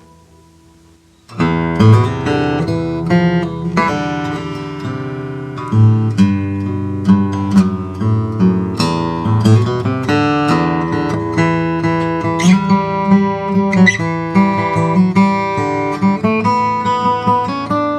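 Steel-string OM acoustic guitar with Brazilian rosewood back and sides and a torrefied Adirondack spruce top, played in an improvised sound sample. The last note dies away, then about a second and a half in the playing resumes with plucked notes and chords ringing on.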